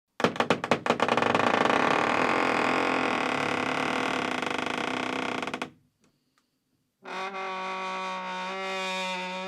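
Old wooden door creaking on its hinges. It opens with a rapid run of sharp snapping clicks that runs into a long rasping creak of about five seconds, which stops. After a short pause, a second, steadier creak with a held pitch begins near the end.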